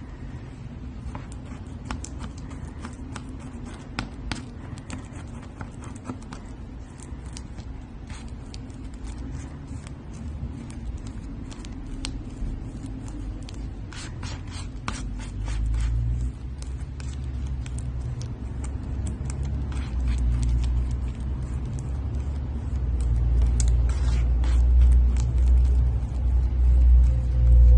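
Slime being handled and squeezed: many small crackles and pops over a low rumble that grows louder through the second half.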